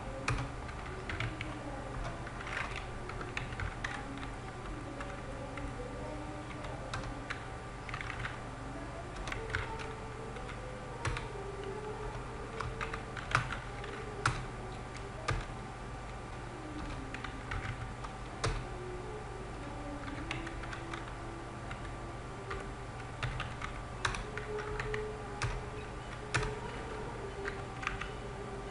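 Typing on a computer keyboard: irregular keystrokes in short runs and pauses, over a steady low hum.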